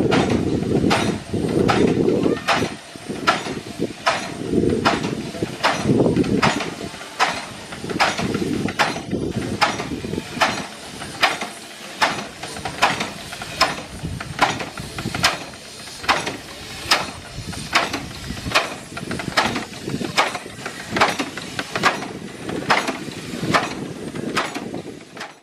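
Replica Cugnot steam fardier running: a steady rhythmic knocking from its steam engine, about one and a half to two knocks a second. A low rumble sits under it for the first several seconds.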